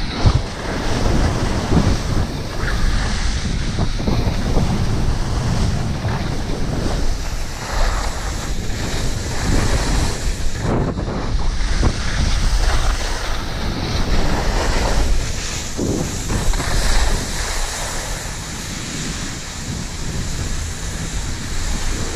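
Wind rushing over the camera's microphone while skiing down a groomed piste, with the hiss and scrape of skis carving on snow. It eases slightly near the end as the skier slows.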